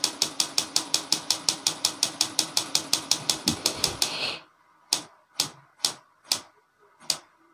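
Sony A7 II focal-plane shutter unit run on bench voltage: its shutter charge motor hums while the mechanism clicks rapidly and evenly, about seven times a second, the shutter now working rather than staying shut. The run stops about four seconds in with the blades left open, followed by a few separate, fainter clicks.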